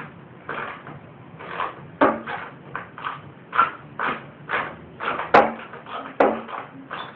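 Hand wrench working a nut off a lawn mower: repeated short strokes of metal clicking and scraping, about two a second, with a couple of sharper metal clinks about five and six seconds in.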